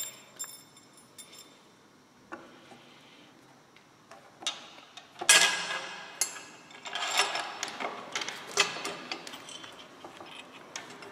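Metal clicks and clinks of a steel engine crash bar, its threaded rod and spacer being handled and fitted to the motorcycle's frame mount. Only a few faint ticks for the first few seconds, then a run of sharper clinks, the loudest about five seconds in.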